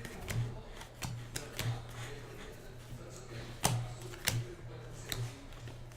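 Trading cards being flipped and slid by hand, making a dozen or so irregular light clicks and snaps, over a faint steady low hum.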